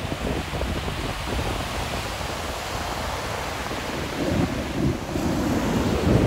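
Wind buffeting the microphone: a steady rush with a fluttering low rumble that grows stronger about four seconds in.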